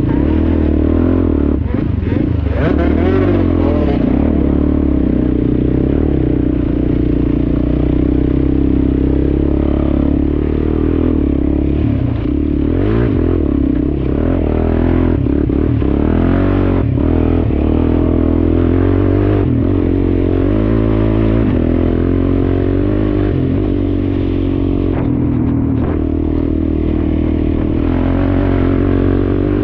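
Quad bike engine running under load and revving up and down as it rides over a rutted mud track, with rattling and clatter from the machine.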